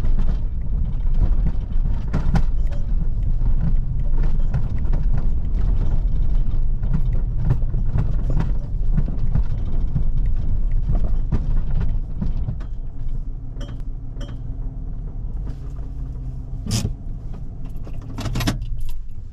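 Car crawling over a rough, rocky dirt track: low engine and tyre rumble with creaks, rattles and knocks from the suspension and body. It gets quieter about two-thirds of the way through as the car comes to a stop, with a couple of sharp knocks near the end.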